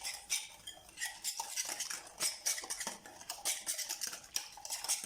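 A metal utensil stirring a thick semolina batter in a bowl, with quick, repeated clinks and scrapes against the bowl.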